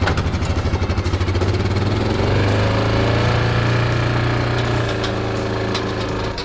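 Side-by-side UTV engine running as it pulls away with a drag made of aluminium ramps and chain in tow. Its pitch rises a couple of seconds in, then holds steady, with a few sharp clicks near the end.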